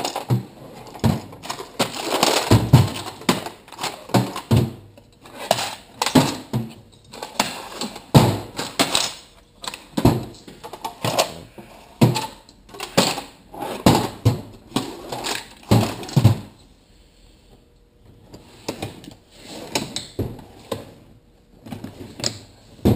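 Metal hand tools clinking and clattering in a toolbox as they are handled: a string of irregular sharp clicks and knocks, with a short lull about three-quarters of the way through.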